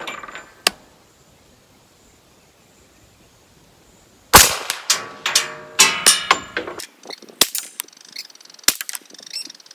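Two gunshots from a CMMG Banshee firing .45 ACP 230-grain full metal jacket rounds, the first under a second in and the louder one about four seconds in. The second shot rings on for a couple of seconds, followed by a scatter of lighter sharp clicks.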